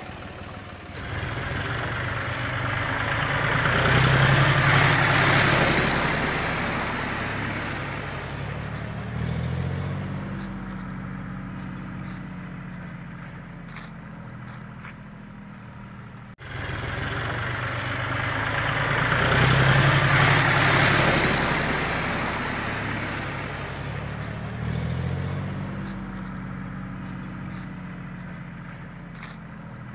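Diesel tractor engine pulling a loaded trolley: it grows louder over the first few seconds, then fades as the tractor moves away. After a sudden cut about halfway, the same rise and fade comes again.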